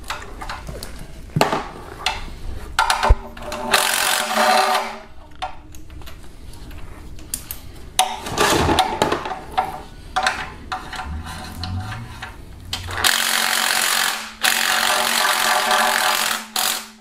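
Power ratchet running in three bursts, spinning out the 10 mm oil pan bolts, with short clicks and knocks of the tool and socket between runs; the longest run comes near the end.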